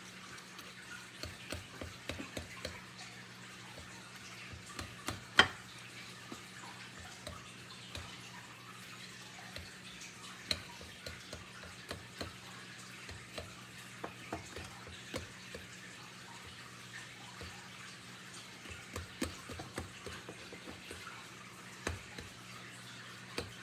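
A utensil stirring food in a mixing bowl by hand, with irregular light clicks and taps against the bowl and one louder knock about five seconds in.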